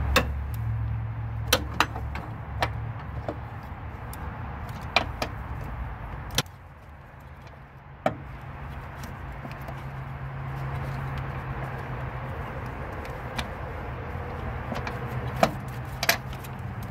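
Scattered sharp metallic clicks and clinks of hand tools and engine parts as a wrench works the engine-mount through-bolt and the mount bracket and timing belt are handled, over a steady low hum.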